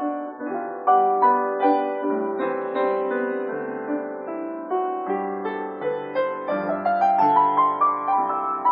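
Piano being played: a melody of struck, decaying notes over a lower accompaniment, with the line climbing in pitch over the last couple of seconds.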